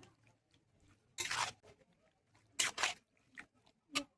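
A spoon scraping and stirring in a cooking pan while curry is mixed: two short scrapes about a second and a half apart, then a couple of light taps.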